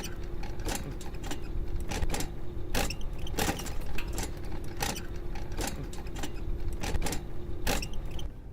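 A scooter running along a path, with a steady low motor hum. Regular knocks and rattles come about one every two-thirds of a second, and the hum's tone stops near the end.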